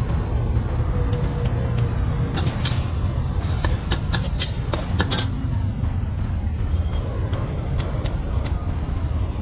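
A steady low roar with a cluster of sharp clicks and taps from about two and a half to five seconds in.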